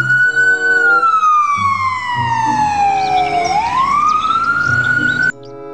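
Ambulance siren wailing: a slow rise, a long slow fall, then a rise again, cut off abruptly near the end.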